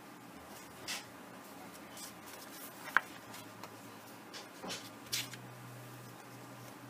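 Pages of a paperback picture book being turned and handled: a few short paper rustles and light clicks, the sharpest about three seconds in, over a faint low hum.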